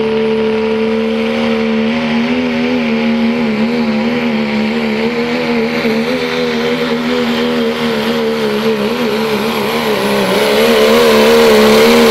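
Second-generation Dodge Ram's Cummins turbo-diesel under full load, pulling a sled. It holds a high, steady pitch that starts to waver about two seconds in and grows louder near the end.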